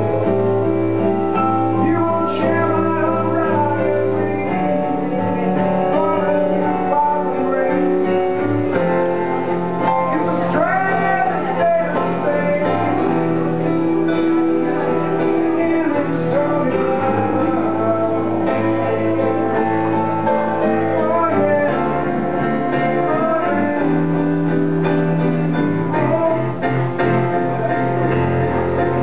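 A woman singing a song over keyboard and acoustic guitar accompaniment. Her sung melody wavers with vibrato over long held low chords that change every few seconds.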